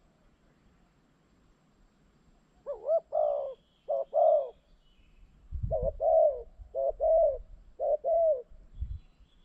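Spotted dove cooing: a phrase of about four low, arching coos about three seconds in, then a longer phrase of about five coos from the middle to near the end.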